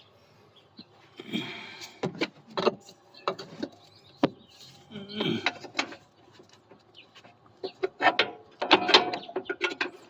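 Metal clinks, knocks and scraping as a long bolt is worked through the rear bushing of a new lower control arm. The sounds come in irregular bunches.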